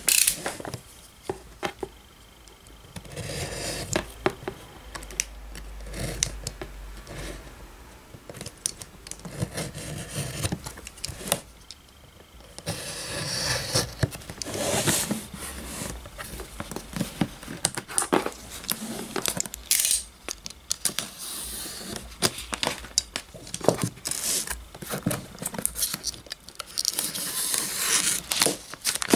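Plastic shrink-wrap torn and peeled off a cardboard box, with irregular crinkling, scraping and small clicks as the wrap comes away and the cardboard box is opened.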